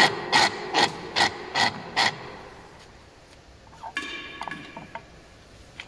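Six quick, evenly spaced metal knocks, about two and a half a second, from the machine being adjusted. About four seconds in, a metal part clanks and rings briefly.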